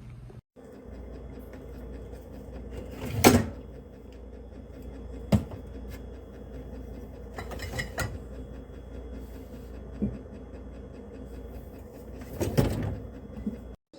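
Several knocks and clicks of objects being handled, over a low steady hum. The loudest come about three seconds in and near the end, with sharper single clicks between.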